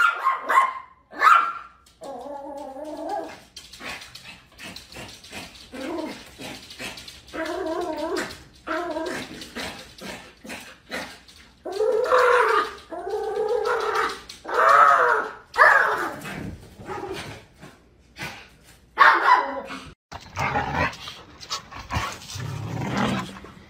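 A small dog vocalising in a long run of separate pitched cries, whines and short barks, some drawn out and wavering. After a short break about twenty seconds in, more dog barks and whines follow.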